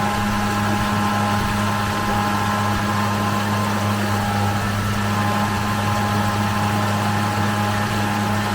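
A 10 HP electric outboard motor running steadily under power: a constant low hum with a higher electric whine above it, over a steady rushing noise.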